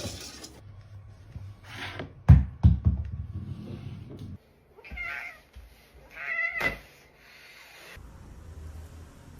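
A few dull thumps about two seconds in, then a domestic cat meows twice, a short call about five seconds in and a longer, louder one a second and a half later.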